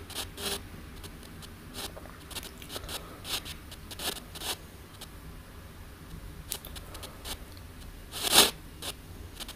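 ANC-Mini radio-sweep spirit box scanning: short crackling blips of static and radio fragments at irregular intervals over a low hiss, with one louder burst about eight seconds in.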